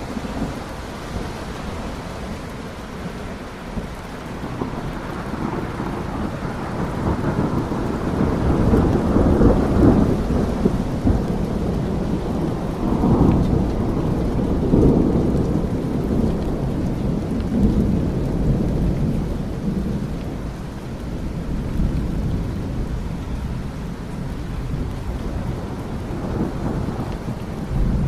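Steady rain with rolling thunder. Deep rumbles swell about a third of the way in and again around halfway through.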